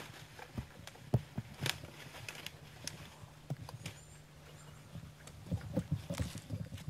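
Whitetail deer footsteps in dry grass and leaves: irregular soft crunches and clicks, a sharp one about a second in and a cluster near the end, over a faint steady hum.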